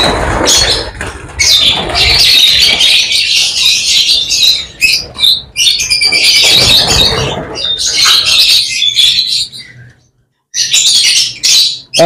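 A flock of lovebirds in an aviary squawking and chattering loudly: shrill calls crowded over one another, with some wing flutters and handling thumps. The calling breaks off briefly near the end.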